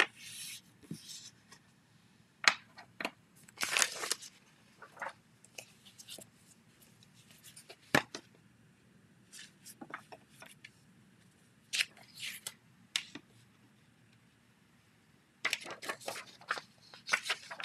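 Scattered sharp clicks and brief paper rustles as card-making and stamping supplies are handled. There is a loud click at the start, another about eight seconds in, and a quick cluster of clicks and rustles near the end.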